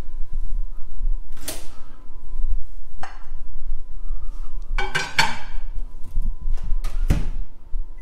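Knocks and clatters from a GE Profile Advantium wall microwave being loaded: its drop-down door is opened, a ceramic plate of food is set inside with a ringing clink around the middle, and the door is shut with a thud about seven seconds in.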